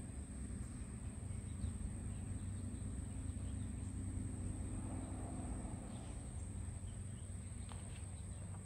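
Steady high-pitched insect trill, over a low outdoor rumble that swells a little about midway.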